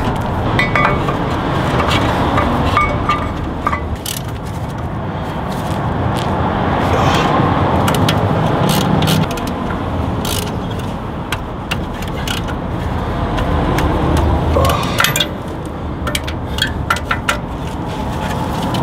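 Scattered metallic clinks and scrapes of brake parts being refitted by hand at a Land Rover Discovery 2's front hub, over a steady rumbling background noise.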